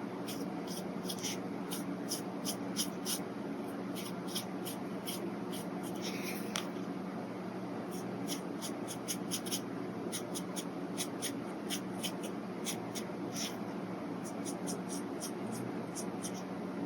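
Brush pen scratching across paper in many short, quick strokes at an irregular pace, with one longer stroke about six seconds in, over a steady low hum.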